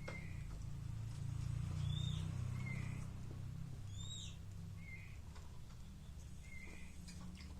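Pet songbird calling: a short chirp repeated about every one and a half to two seconds, with two higher curving whistled notes in between, over a low rumble.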